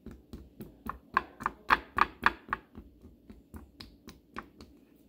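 A small blue mixing spoon stirring not-yet-melted chocolate in a glass bowl, clicking against the glass about three or four times a second. The clicks are loudest in the middle and fade toward the end.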